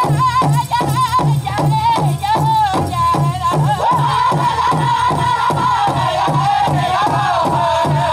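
Pow wow drum group singing: a big drum struck in an even beat, about three strokes a second, under a chorus of high, wavering voices.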